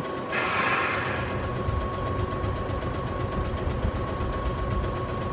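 Mitsubishi Fuso Aero King double-decker bus: a short hiss of compressed air vented from its air brake system about half a second in, over the engine idling. The low engine rumble grows stronger after the hiss.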